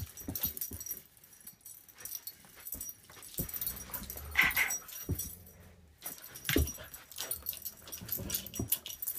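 Small dog making a few short vocal sounds, with light clicks scattered throughout.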